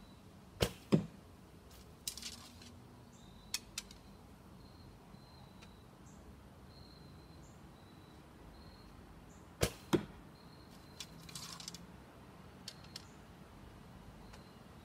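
Two shots from a Bearpaw Bodnik Crow recurve bow, about nine seconds apart. Each is a sharp string release followed about a third of a second later by a thwack as the arrow strikes the target. Softer clicks and brief rustles follow each shot, and faint high chirps repeat in the background.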